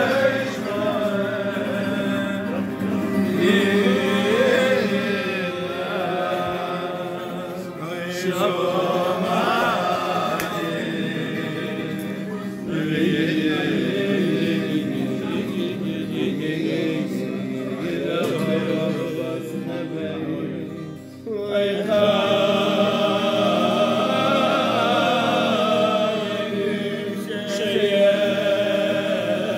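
A man singing a Jewish melody, with a short break about two-thirds of the way through.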